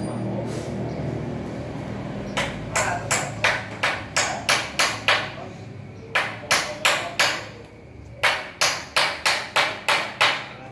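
Repeated sharp knocks in three quick runs, about three a second, like hammering, over a low rumble that fades during the first two seconds.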